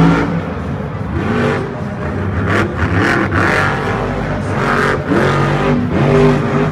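Monster truck engine revving hard in repeated surges, its pitch rising and falling as the truck accelerates over the dirt and pops a wheelie.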